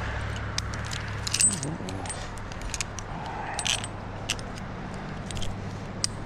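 Metal climbing hardware clinking and jingling in many short, irregular clicks, over a steady low hum.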